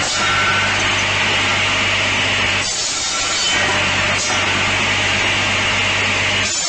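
Firewood kindling splitter with a rotating bladed wheel running: a steady machine hum under a continuous rasping crackle of wood being split as pieces are fed in. The splitting noise dips briefly twice, near the middle.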